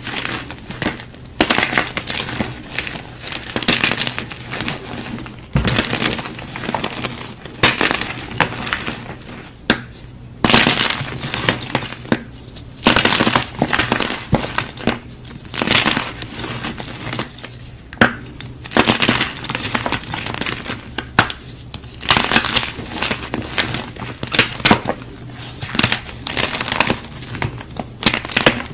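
Blocks of gym chalk being crushed, a long run of crunchy, crumbling bursts every second or two.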